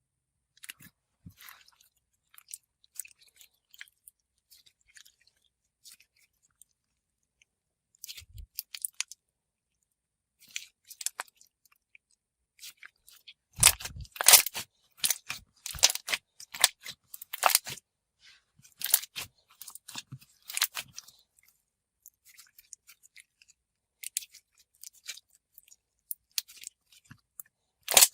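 Jelly slime mixed with foam discs being squeezed and worked by hand, giving irregular wet crunches and crackles. The crunching is sparse at first and gets louder and denser from about halfway through.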